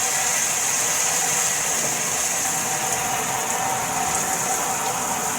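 Water spraying steadily from a shower head, a constant hiss.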